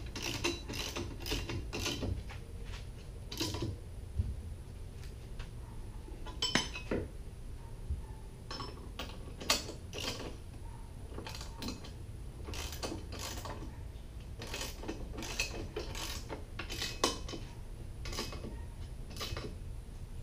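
3/4-inch socket ratchet clicking in short runs with pauses as bolts are tightened, with the odd clink of metal tools against the bracket.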